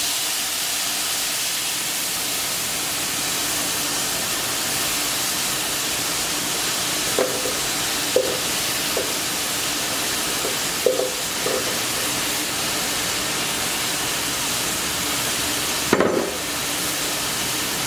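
Blended tomato, onion and garlic sauce sizzling and hissing steadily in a pan of rice toasted in hot oil, giving off steam. A few brief stirring sounds come midway, and there is a knock about sixteen seconds in.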